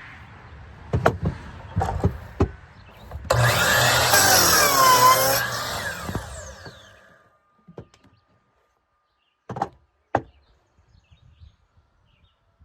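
Electric power saw starting with a sudden whine and cutting through a wood board for about two seconds, then spinning down. A few knocks of wood being handled come before and after the cut.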